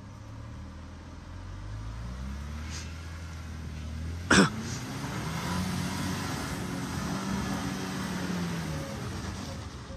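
Tank 300 SUV's engine revving under load as it climbs a steep mud slope, its pitch rising, holding, then falling away near the end. A brief sharp burst about four seconds in is the loudest sound.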